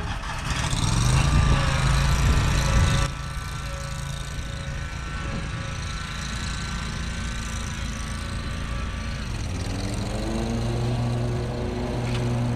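Petrol engine of a stand-on commercial mower running. It is louder for the first three seconds and drops suddenly, then runs steadily, and about nine seconds in it revs up to a higher, steady pitch as the mower pulls away.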